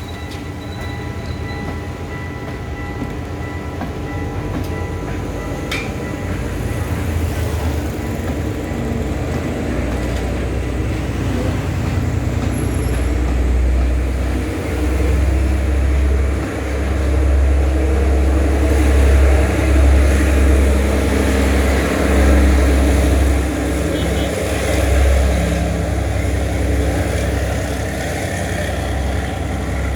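Sri Lanka Railways Class S10 diesel multiple unit accelerating past, its engines and wheels building to a heavy low rumble about halfway through, then easing slightly near the end.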